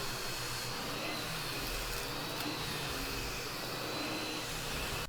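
Vacuum cleaner motor running steadily, a rushing airflow with a faint high whine, cutting off suddenly at the end.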